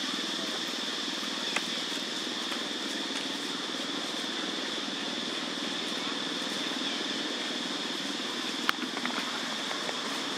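Steady outdoor ambience: a constant high-pitched drone over an even low rumble, with one sharp click about three-quarters of the way through.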